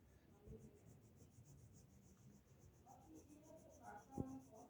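Faint, fast scribbling of colour on paper as a drawing is coloured in, about seven strokes a second, with a single knock a little after four seconds.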